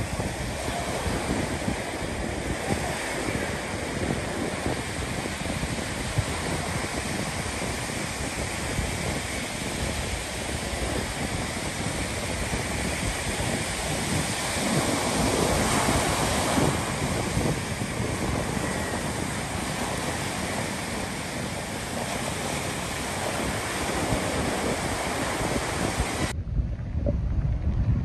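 Small ocean waves breaking and washing up the sand in a steady surf wash, swelling about halfway through. Near the end it cuts suddenly to a low rumble of wind buffeting the microphone.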